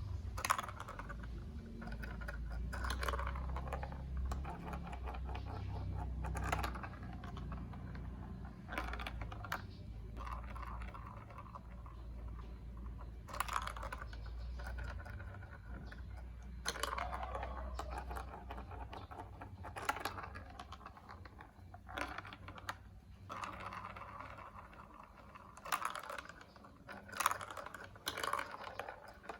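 Hard plastic marble run pieces clicking and rattling as they are handled and fitted together, with irregular sharp clicks every second or two and stretches of dense rattling.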